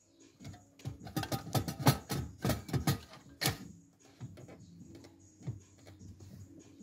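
Car stereo head unit being pushed into its dashboard slot: a quick run of plastic and metal clicks and knocks for a couple of seconds, then a few scattered taps as it is pressed home.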